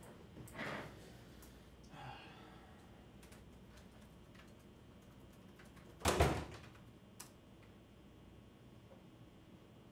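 Faint clicks of typing on a laptop keyboard in a quiet small room, with one loud, short thump about six seconds in and a couple of softer knocks near the start.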